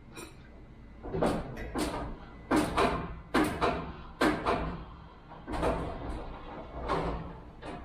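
A run of irregular clanks and knocks from metal parts and tools being worked at a truck's hood support, starting about a second in, roughly ten sharp hits in a few seconds.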